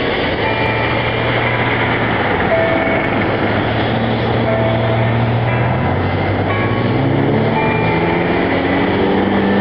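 Church bells playing the noonday tune: a slow series of held, pitched notes that change every second or two over a steady rushing noise.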